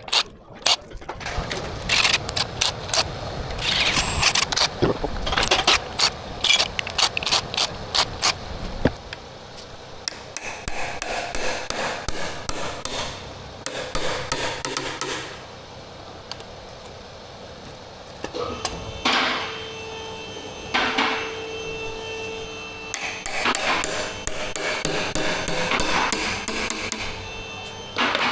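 Hand tools working on engine parts: quick runs of sharp tapping and knocking in the first part, then scraping and clanking. Short spells of a small power tool's steady whine come in the second half.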